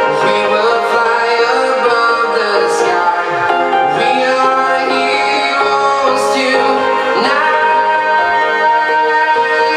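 Electronic dance track with a sung vocal playing loudly through JBL EON715 PA speakers with EON718S subwoofers. This passage carries little deep bass.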